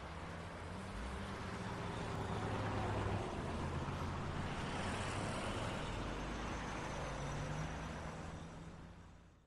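City street traffic: a steady wash of road noise with the low hum of vehicle engines, swelling up in the first few seconds and fading out near the end.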